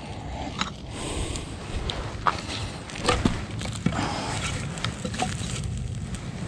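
Footsteps on rocky ground with scattered sharp clicks and knocks at uneven intervals, over a low steady rustle.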